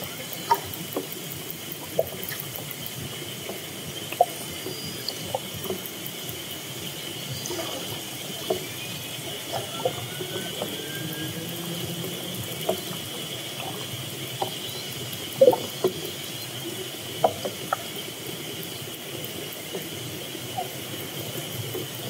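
Underwater hydrophone recording of orcas: many scattered sharp clicks and short pops, with a few faint whistles gliding up and down in pitch, over a steady high hum.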